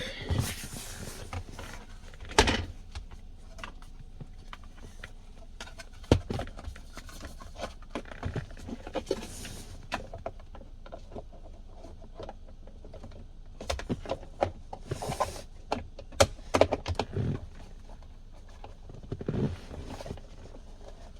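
Car interior trim parts being handled and fitted back together: scattered clicks and knocks, one louder knock about six seconds in, with short bursts of rustling.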